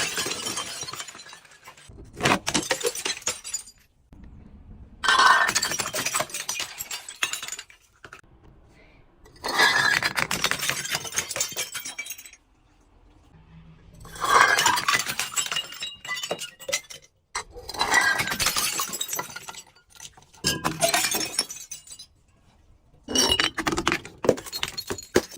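Glass bottles being smashed and crushed, the shards crunching and clinking in about seven bursts of a few seconds each with short pauses between.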